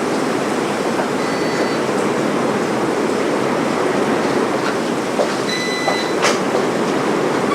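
Steady roar of a severe storm's heavy wind and rain, with two brief high chirps partway through.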